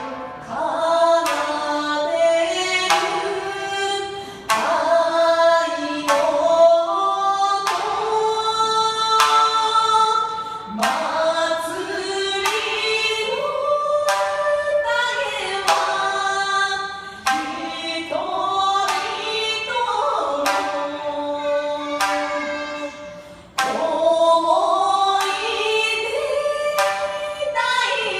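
Two women singing a Japanese song together, accompanied by a shamisen whose sharp plucked strikes punctuate the melody once or twice a second.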